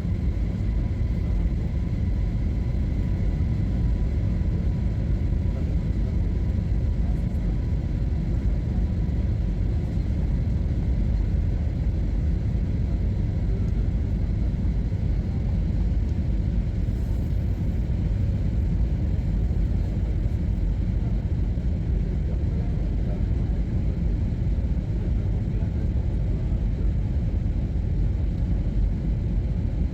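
Steady low rumble of airliner cabin noise aboard an Airbus A321ceo, the engines and airflow heard from inside. Faint high whine tones fade out over the first several seconds.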